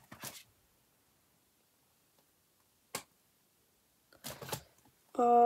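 Handling rustle of a clear plastic binder cash envelope, with a single sharp click about three seconds in from its press-stud fastener being worked, then more rustling.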